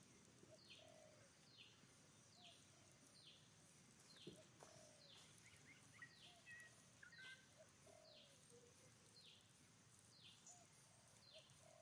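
Faint outdoor ambience: a bird's short, high, falling call repeats steadily about once a second, with scattered lower calls and chirps in between.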